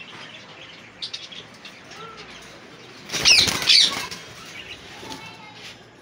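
Indian ringneck parakeets flapping their wings in a sudden flurry about three seconds in, with two shrill calls at the same moment. Faint chirps and small clicks come before and after.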